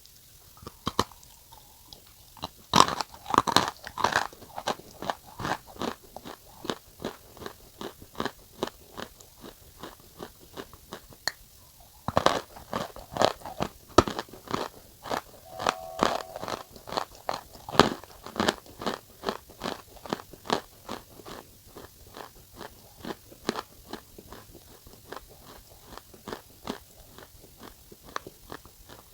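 Close-up mouth sounds of someone biting and chewing a crunchy semi-roasted food. There are two bouts, each opening with loud crisp bites, about 3 s and 12 s in, then settling into steady crunching chews of roughly two to three a second that grow softer.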